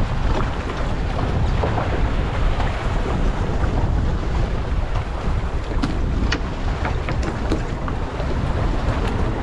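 Wind rumbling on the microphone over choppy sea washing against the side of a small fishing boat, with a few faint ticks about six to eight seconds in.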